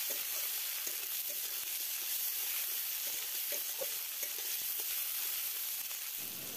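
Onion and tomato sizzling steadily in oil in a wok over low heat, with a metal spatula scraping and stirring against the pan now and then.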